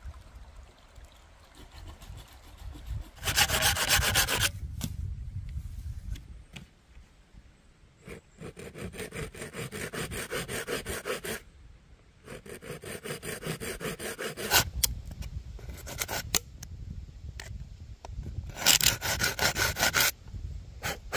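Rapid, rhythmic scraping or rasping strokes in several bursts of one to three seconds, with quieter pauses between; the loudest bursts come about three seconds in and near the end.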